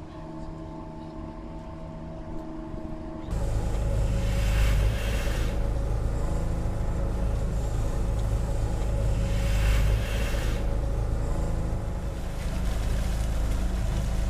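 Rescue boat's outboard motor droning steadily for about three seconds, then an abrupt cut to a loud low rumble of noise with two surges of hiss, one a second or so after the cut and one about ten seconds in.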